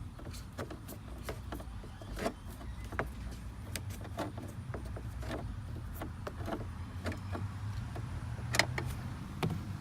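Scattered light clicks and taps of a screwdriver working screws out of a car's instrument cluster and plastic dash trim, over a steady low hum.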